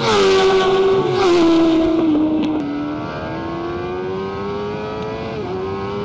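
Suzuki GSX-R750 inline-four engine at speed on track. Its note falls over the first three seconds, then climbs steadily under hard acceleration, dropping once at an upshift about five and a half seconds in.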